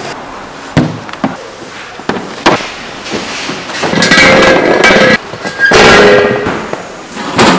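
Steel LPG gas cylinder being rolled on its bottom rim across paving tiles: two long grinding scrapes with a metallic ringing note, after a few sharp knocks.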